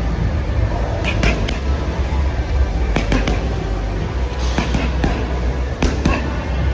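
Loud background music with heavy bass, with a few clusters of sharp knocks or clicks over it.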